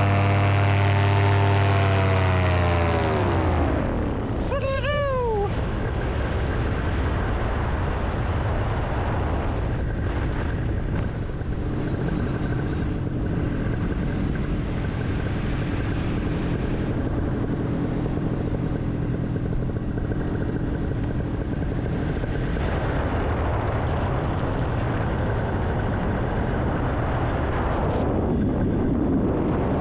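Paramotor engine and propeller running steadily, then throttled back about four seconds in, its pitch sliding down. After that mostly wind rushing over the microphone, with a faint steady engine hum underneath.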